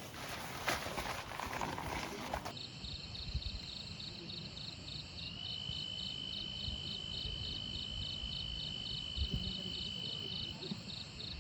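Night insects chirping in a steady rhythm, about four pulses a second, with a second insect's continuous high trill joining about five seconds in and stopping near the end. Before that, for the first two seconds or so, a rustling noise cuts off abruptly.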